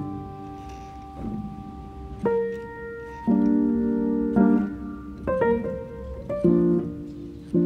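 Background music: a piano playing slow sustained chords, a new chord struck about once a second.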